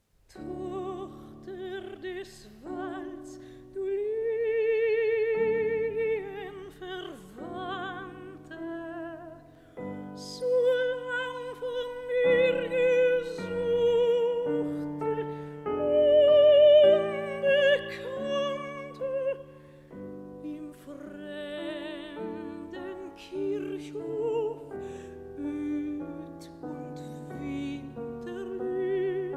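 A soprano sings a German art song (Lied) with wide vibrato, accompanied by piano. The voice swells to its loudest about halfway through.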